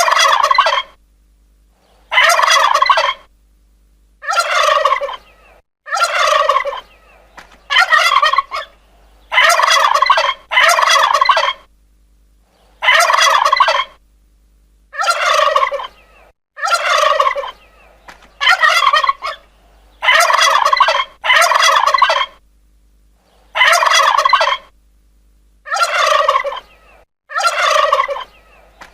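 Turkey gobbling, over and over: about sixteen separate rattling gobbles, each roughly a second long, several falling in pitch, with short pauses between them.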